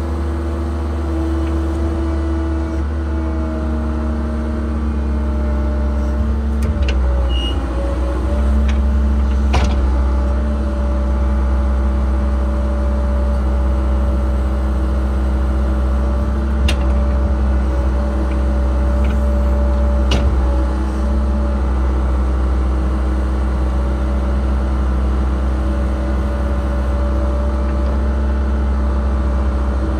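Cat 306 excavator's diesel engine and hydraulics running steadily, heard from inside the cab as the boom and bucket are worked, the pitch shifting briefly about a quarter of the way through. A few sharp clicks stand out over the running engine.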